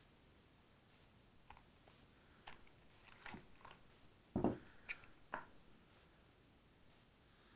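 Faint handling noise of a pocket knife: a few short clicks and knocks, the loudest about four and a half seconds in.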